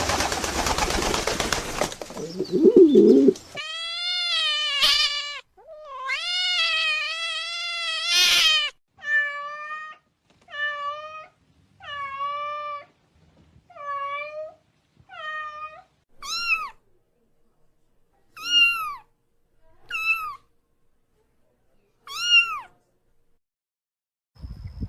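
A cat meowing over and over, about a dozen separate meows. The first ones are longer and lower; the later ones are short, higher-pitched and rise then fall. A few seconds of noisy sound come before the first meow.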